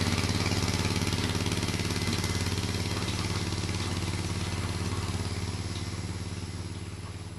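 Allis-Chalmers 716 garden tractor engine running at a steady speed, gradually fading away toward the end.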